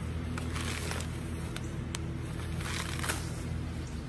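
Clear plastic wrapping crinkling and rustling as it is pulled and bunched off a bicycle wheel, with a few sharp crackles.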